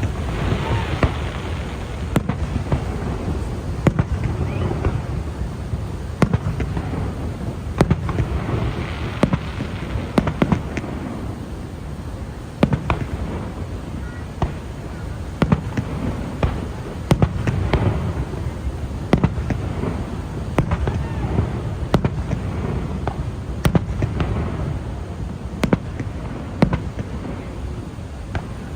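Fireworks going off: sharp bangs every second or two, with spells of crackling that swell and fade over a few seconds at a time.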